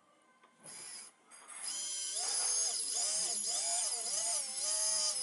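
Brushless motors of a QAV105 mini FPV racing quadcopter spinning up and whining, starting about a second and a half in, the pitch rising and falling several times as the throttle is varied.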